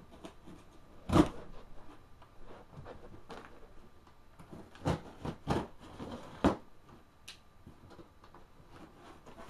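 A cardboard shipping box being opened and handled: a scatter of knocks, taps and scrapes, the loudest about a second in and a cluster of three more in the middle.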